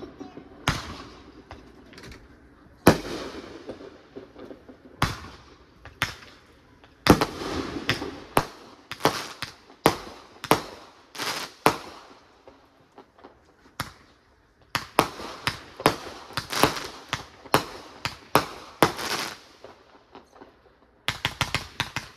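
Consumer fireworks going off: a string of sharp bangs about a second apart, many with a crackling tail as aerial effects burst. Near the end comes a quick run of crackles as a ground fountain sprays.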